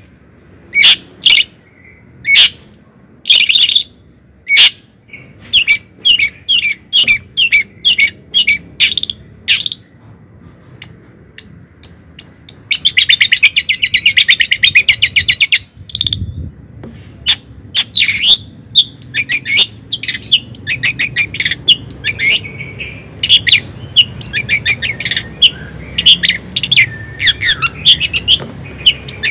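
A small bird chirping loudly in quick, separate high chirps. About 13 seconds in it breaks into a continuous warbling run lasting about three seconds, then goes back to dense, rapid chirping.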